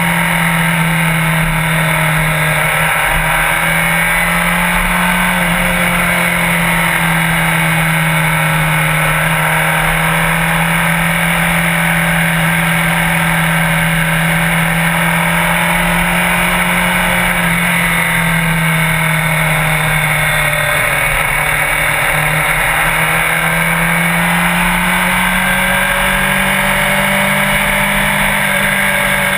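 Sport bike engine running at a steady cruising speed, its pitch drifting slowly up and down as the throttle eases on and off, over a constant rush of road and wind noise.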